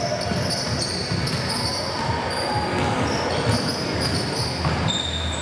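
Basketball game sounds on an indoor court: the ball bouncing, with many short, high squeaks of players' shoes on the floor.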